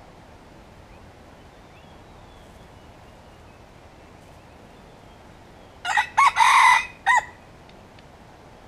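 Wild red junglefowl rooster crowing once, about six seconds in: one crow in four parts lasting about a second and a half, with a long middle note.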